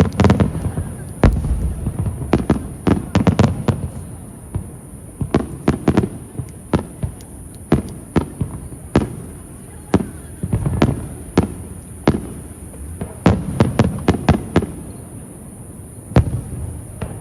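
Aerial fireworks shells bursting in quick irregular volleys: sharp bangs, several close together, each trailing off in a low rumble.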